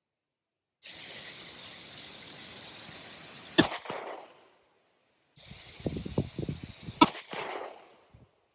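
Two single gunshots about three and a half seconds apart, each a sharp crack with a short echoing tail, over steady background hiss. A few low knocks come just before the second shot.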